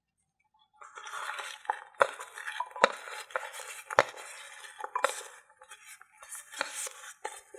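A small metal tray scraping along and knocking against the rim of a ceramic bowl as diced pieces are pushed off it into minced pork, with a rustling scrape and several sharp clinks. The scraping pauses briefly a little before the end, then starts again.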